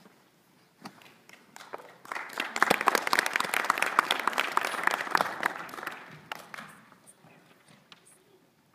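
Small audience applauding: scattered claps that swell into full applause about two seconds in, then fade out over the next few seconds to a few last claps.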